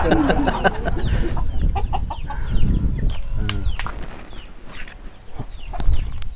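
Native Vietnamese chickens (gà ta): chicks peeping in short, high notes that fall in pitch, several a second, with some lower hen clucks. A few sharp knocks, the loudest near the end.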